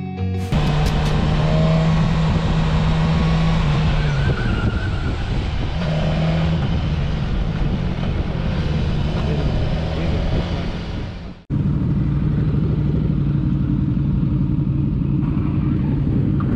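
Motorcycle engine running steadily under wind and road noise, heard from the rider's camera while riding. A little past two-thirds of the way through, it cuts abruptly to another motorcycle's engine running steadily while stopped, with the tail of guitar music at the very start.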